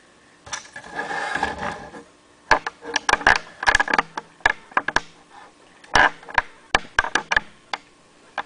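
Handling noise as the camera is moved and set in position: a rustling scrape, then a run of sharp, irregular clicks and knocks.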